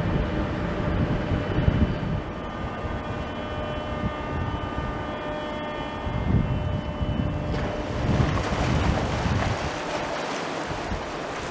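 Tour boat's engine running with a steady hum and a few held tones, wind buffeting the microphone in low gusts. About two-thirds of the way through the tones drop away and a louder, even rushing hiss takes over.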